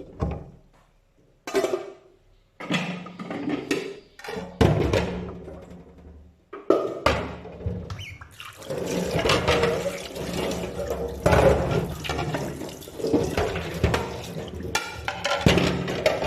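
Water running into a kitchen sink as dishes are washed. A few separate knocks and clatters come in the first seconds, then a steady rush of running water begins about six and a half seconds in.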